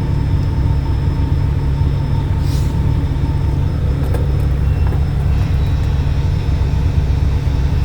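A steady, loud low mechanical drone, with a short hiss about two and a half seconds in and a few faint clicks around four seconds.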